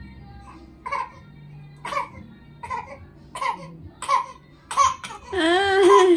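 One-month-old baby crying: a run of short fussy cries, about one every 0.7 seconds, then a louder long wavering wail near the end.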